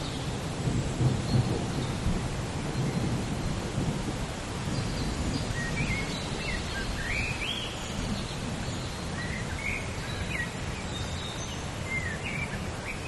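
Steady rain hiss with a low rumble of thunder, strongest in the first few seconds. Short bird chirps come now and then over the rain.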